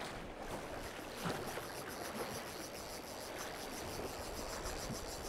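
Steady rush of a fast river's current, with water swirling and splashing around wading legs.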